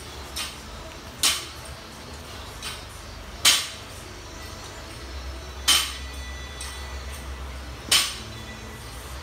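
Loaded barbell with bumper plates coming down onto rubber gym flooring in repeated reps: four sharp knocks about two seconds apart, with lighter clinks of the plates between them.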